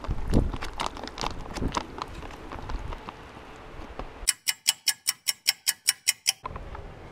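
A spoon stirring and scraping in a foil-lined freeze-dried meal pouch, with irregular clicks and crinkles. About four seconds in, a clock-ticking sound effect cuts in: fast, even ticks, about six a second, for about two seconds, then stops suddenly.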